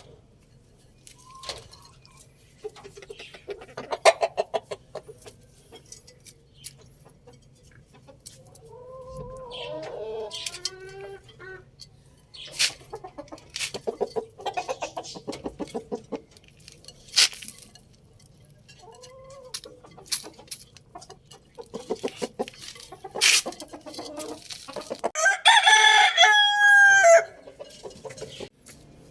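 Rooster crowing once, loud and drawn out, near the end. Earlier come shorter clucks and calls, along with many sharp clicks.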